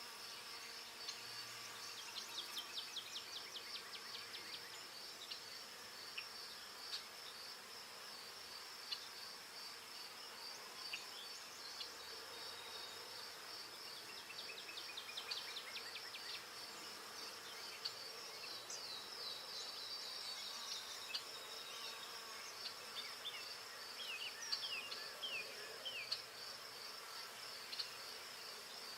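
Forest ambience: a steady, high-pitched pulsing insect trill, with runs of quick bird chirps coming and going over it.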